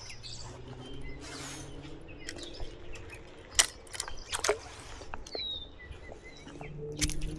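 Outdoor ambience with a faint low hum and a few scattered sharp clicks and knocks, the loudest about halfway through. A bird chirps once, a little after the middle.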